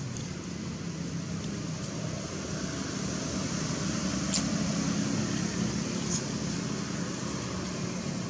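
Steady low rumble and hiss of background noise, a little louder in the middle, with two faint clicks about four and six seconds in.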